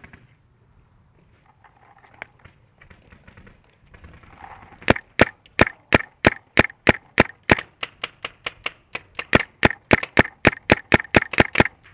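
Shocker RSX electropneumatic paintball marker firing a rapid, even string of about thirty shots, roughly four to five a second, starting about five seconds in.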